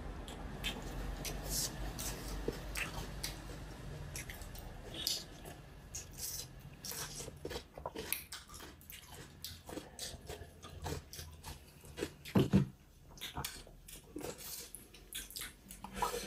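Close-miked eating sounds: chewing, lip smacks and irregular small clicks from a mouth working through a meal of chicken and rice.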